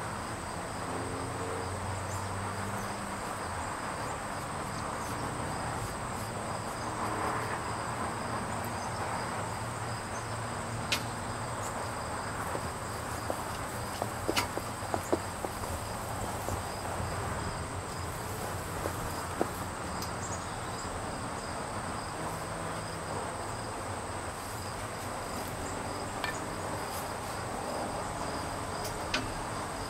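Steady high-pitched trilling of insects, with a few sharp clicks and knocks scattered through it, several close together about halfway.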